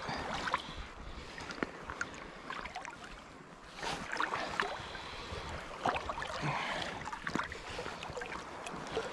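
Shallow sea water lapping and splashing close by, with scattered small irregular clicks and knocks.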